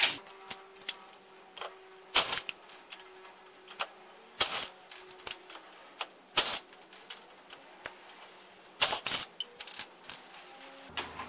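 Irregular sharp metallic clicks and clinks of the wheel's lug nuts being worked off and handled, with a few louder clanks among them.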